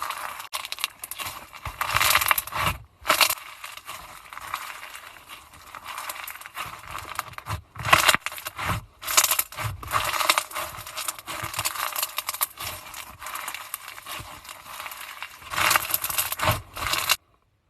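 Slime being squeezed, pressed and stretched by hand, giving dense crackling made of many small clicks and pops that comes in uneven bursts. It cuts off abruptly near the end.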